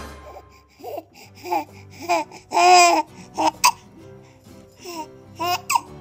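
Baby making a string of short, squeaky voiced sounds, about ten in a few seconds, with one longer, louder one about halfway through. Swing music fades out at the very start.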